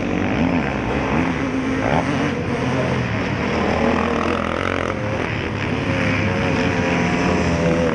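Several MX1 motocross bikes racing, their engines revving up and dropping back as the riders work the throttle through the track, the pitches overlapping and rising and falling.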